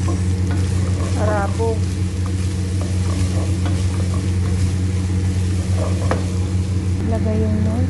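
Wooden spatula stirring and scraping grated carrots and tomato paste as they sizzle in oil in a granite-coated pot, over a steady low hum.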